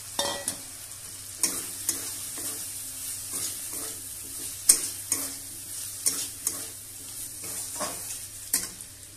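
Metal spatula scraping and knocking irregularly against a metal kadai as pre-fried potato cubes are stirred into frying onion masala, over a steady sizzle of hot oil.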